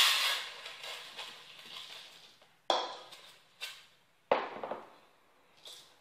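Raw rice grains poured from a plastic bowl into a rice cooker pot: a rush of pouring grains at the start that dies away, then four shorter sharp rattles as the last grains are shaken out of the bowl, the sharpest about four seconds in.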